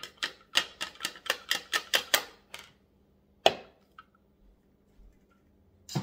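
A fast run of sharp plastic clicks and taps, about five a second for two and a half seconds, then one louder knock a second later, from a food processor's bowl and lid being handled just after grinding oats into flour.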